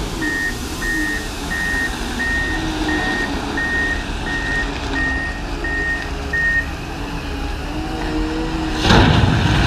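Reversing alarm of a heavy machine at work, about ten high beeps at one pitch, roughly three every two seconds, over a diesel engine running. The beeping stops about six and a half seconds in. Near the end comes a short, loud burst of noise.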